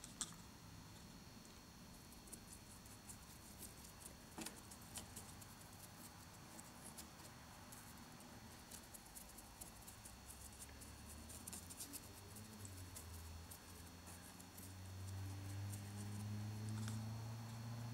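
Faint scratchy dabbing of a small paintbrush on a cast rock face, in small irregular taps, over a faint steady high whine. A low hum comes in and grows louder near the end.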